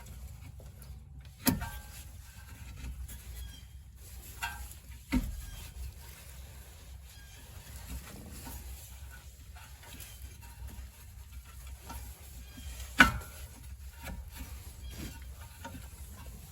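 Hammer blows on the rear brake caliper hardware to knock it loose: three sharp knocks, about a second and a half in, about five seconds in, and the loudest about three-quarters of the way through, over a steady low hum.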